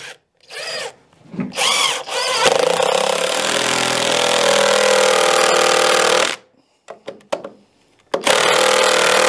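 Cordless impact driver driving a self-drilling tek screw through a wooden window sub-jamb into steel angle iron: a few short spurts, then a steady run of about four seconds, a pause, and a second run starting near the end.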